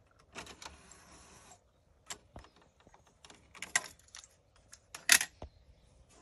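Denon UDR-F10 cassette deck ejecting: its door mechanism runs for about a second as the cassette holder tilts open, then a string of plastic clicks and knocks as the tape is pulled out of the holder, the sharpest about five seconds in.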